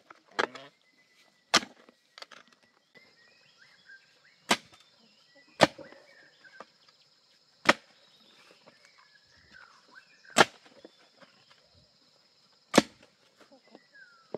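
Hand hoe blade chopping into dry, lumpy clay soil while digging a hole: about seven sharp strikes at uneven intervals. A steady high thin hum runs behind them from about three seconds in.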